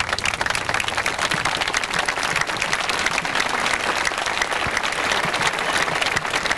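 Crowd applauding, many hands clapping at once; it rises sharply as it begins and then holds steady.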